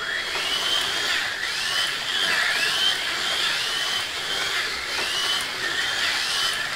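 Small electric motors of 1/43-scale slot cars whining at full throttle, the high pitch rising and falling again and again as the cars speed up and slow through the turns, over the rattle of the cars running on the plastic track.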